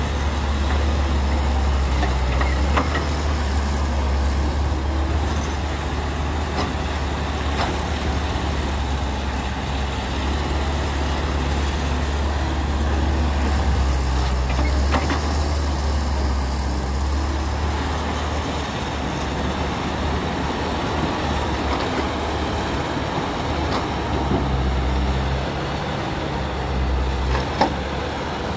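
Diesel engine of a Caterpillar tracked excavator running under load with a steady low drone as it digs and swings soil into a dump truck. A few sharp knocks, the loudest near the end.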